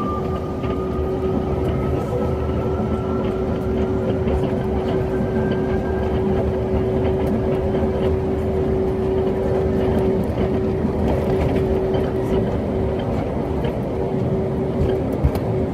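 Airplane's engines running steadily at takeoff power over a broad rumble as it rolls down the runway, with a whine rising slowly in pitch over the first few seconds. Scattered clicks and one sharp thump near the end.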